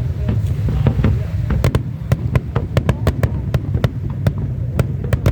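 Aerial fireworks bursting: rapid sharp cracks and bangs, thickest in the middle, over a steady low rumble.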